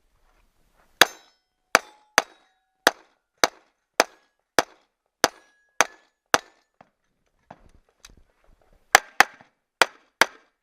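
Gunshots fired at steel targets in a timed string: about ten shots roughly half a second apart, a pause of about two seconds, then a quicker run of four. Some shots are followed by a brief ring from a struck steel plate.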